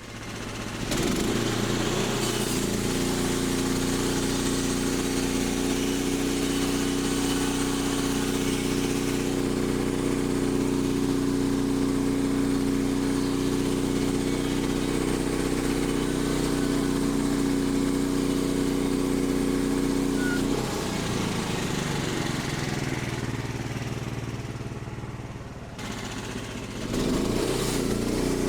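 Gasoline engine of a portable bandsaw sawmill starting up and running steadily. About twenty seconds in, its steady note breaks up and the level sags for several seconds, then picks up again near the end.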